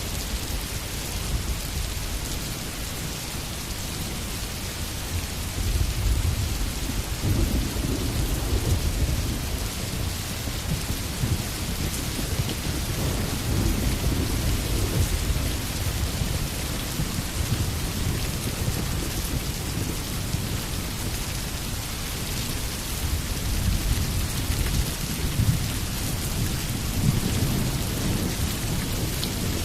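Steady rain falling, with low rolls of thunder swelling and fading, strongest around six to ten seconds in, again around fourteen seconds, and near the end.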